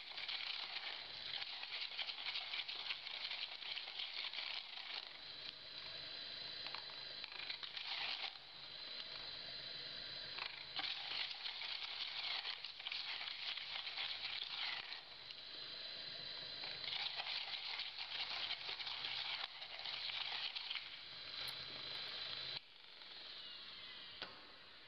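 IKA Vibrax VXR vibrating shaker running with a plastic cup of sand-filled geopolymer cement paste held on its platform: a steady gritty hiss and rattle with a faint high whine. It stops abruptly near the end.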